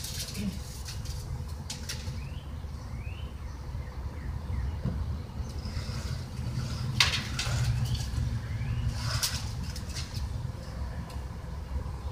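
Backyard ambience: a steady low rumble with a few short bird chirps, broken by several sharp knocks and scrapes from work on a length of lumber.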